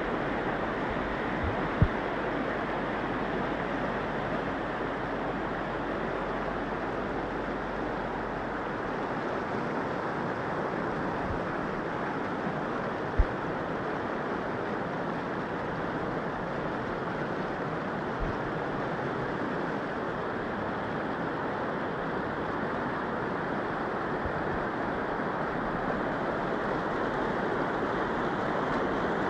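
Fast-flowing floodwater rushing steadily, with two brief sharp knocks, one about two seconds in and one near the middle.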